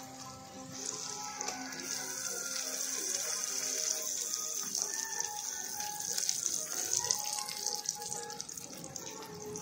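Chopped onions and tomatoes frying in hot oil in a pot: a steady sizzle that starts about a second in and grows a little louder.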